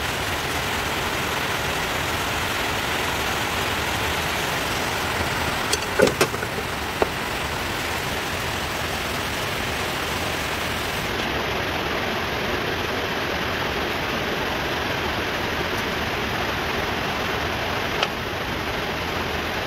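Steady hiss of rain. A few sharp clicks from hands working metal pipe fittings come through it: two about six seconds in, one a second later, and one near the end.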